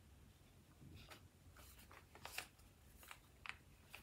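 Near silence with several faint, brief rustles of fabric being folded and handled by hand.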